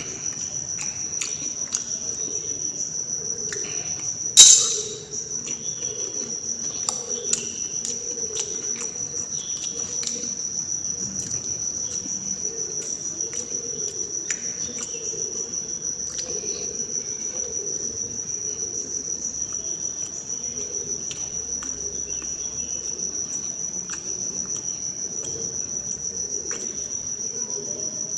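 A steady high-pitched cricket trill, with small scattered clicks from fingers and food on a steel plate. A single sharp knock with a brief ring comes about four seconds in.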